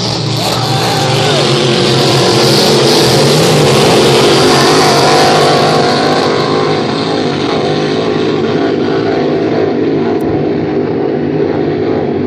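Racing hydroplanes running at full speed on open water. The engines' loud drone and spray noise swell to their loudest about four seconds in, then ease off as the boats pull away.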